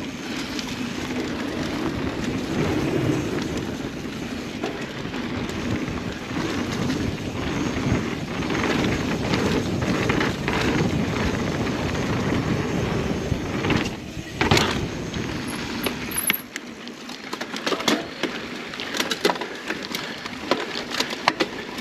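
Mountain bike rolling fast on a dirt trail: tyre roar and wind rush with drivetrain rattle, and one sharp knock about two-thirds of the way in. The rushing drops away near the end, leaving scattered light clicks as the bike slows.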